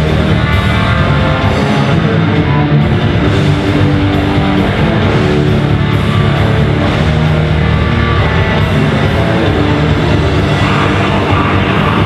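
Rock band playing loud and live: distorted electric guitars over bass and a drum kit, with steady drum hits driving the beat.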